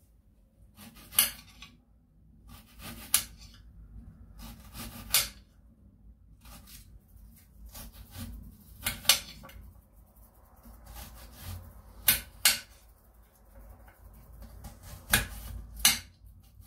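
Kitchen clatter: dishes and utensils knocked and set down on a counter, a sharp clink every second or two, some of them in quick pairs.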